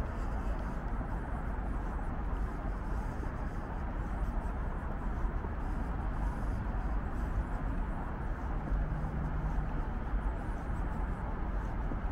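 Steady outdoor background noise: a constant low rumble and hiss with no distinct events. A brief low hum comes in about three quarters of the way through.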